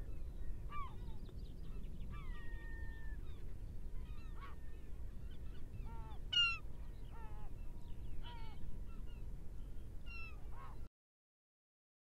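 Many short bird calls from a flock, some with a honking quality, over a steady low rumble. Everything cuts off suddenly about a second before the end.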